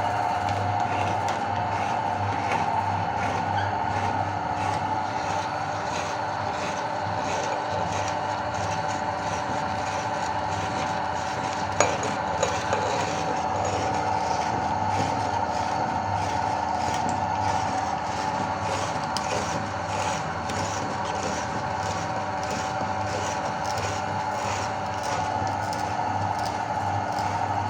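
Electric meat grinder motor running steadily, grinding soap, with one sharp click about twelve seconds in.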